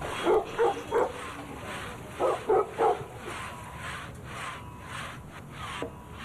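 A dog barking: two quick runs of three barks, about two seconds apart.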